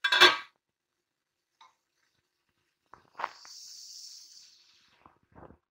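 An aluminium lid is set down on a karahi with a short metallic clatter. About three seconds later comes a small knock, then a brief steady hiss of chicken frying in oil under the lid.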